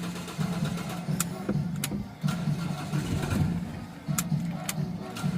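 Ford Everest engine idling with a steady, slightly uneven low hum, with a few sharp clicks over it. The engine has a loose sensor wiring connection that sends the temperature gauge and RPM erratic.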